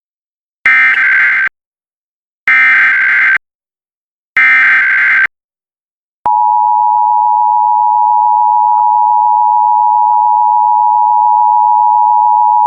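Emergency Alert System SAME header: three short bursts of warbling data tones about a second apart. About six seconds in, the steady two-tone EAS attention signal begins and holds. Together they mark the start of an EAS message, here the Ohio statewide monthly test.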